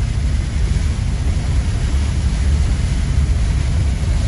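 Steady low rumble and wash of a car driving through shallow floodwater in heavy rain, heard from inside the cabin.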